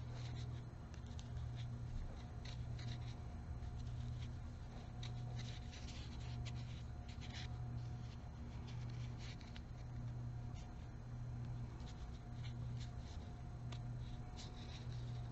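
Crochet hook working yarn: soft scratchy rustles and small irregular clicks as stitches are pulled through. A low hum swells and dips about once a second underneath.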